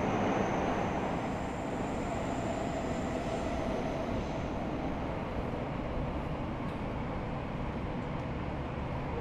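Train sound effect: a steady rumble of a train running along the tracks, slightly louder in the first second or so.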